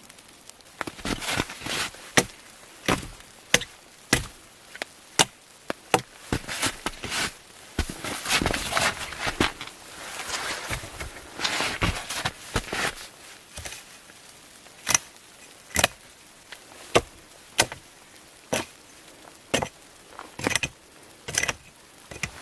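Axe chopping and splitting dead logs for firewood: a run of sharp wooden knocks at uneven intervals, roughly one a second, with a denser stretch of cracking and crunching midway.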